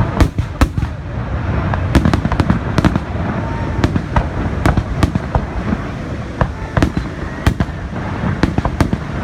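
Fireworks going off in quick, irregular succession, several sharp bangs a second over a continuous low rumble.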